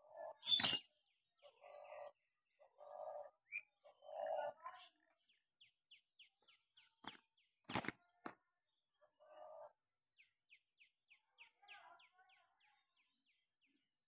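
Two doves squabbling on the ground: several short, low coos, and a few sharp wing claps just past halfway as one flaps at the other. A small bird's quick, high chirps repeat at about three a second in the background.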